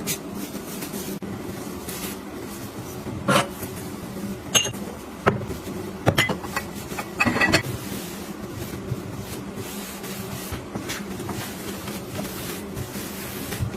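Household objects being handled and set down: a handful of sharp knocks and clinks, most of them in the first half, over a steady low hum.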